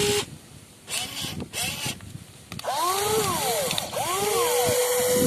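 Electric motors and gears of a WLtoys 16800 metal RC excavator whining. After a couple of short noisy bursts, the whine rises and falls in pitch several times as the motors speed up and slow down, then holds steady near the end.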